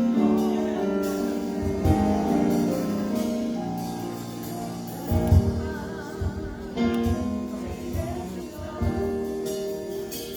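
Gospel-style music with singing over instruments.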